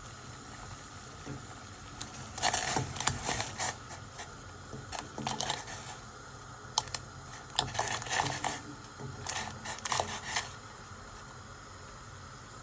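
Food-preparation handling sounds: several short bursts of crisp clicking and scraping, over a faint steady background hum.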